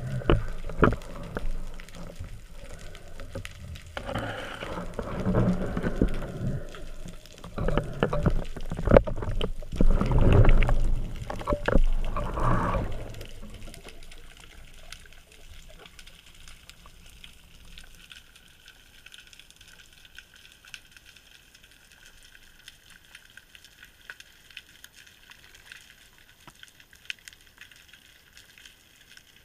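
Water splashing and gurgling around a spearfisher at the surface for the first dozen seconds or so, stopping as he dives. Then the muffled quiet of the water at depth, with scattered faint clicks and a faint steady high hum.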